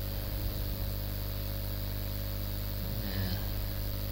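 Steady electrical mains hum with a faint buzz and hiss. A brief, faint sound comes about three seconds in.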